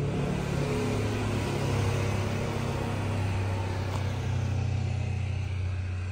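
An engine running steadily, a low drone that holds the same pitch throughout.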